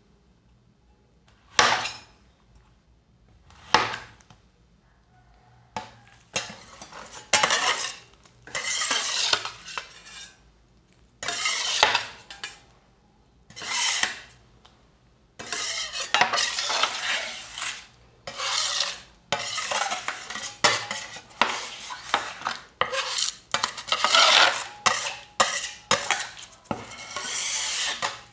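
Two steel ice cream roll spatulas working on a stainless-steel cold plate: a few separate clacks as they chop red dragon fruit, then repeated scraping and mixing strokes through the liquid ice cream base, coming almost without pause in the second half.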